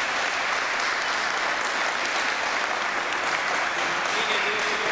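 Crowd of spectators and children applauding, a steady dense clapping that keeps an even level throughout.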